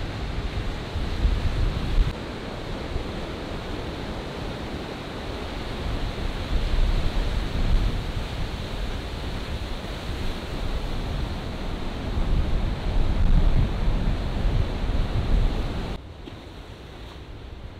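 Ocean waves breaking and rushing in whitewater, with wind buffeting the microphone in low rumbles. About sixteen seconds in the sound drops to a quieter, calmer wash of water.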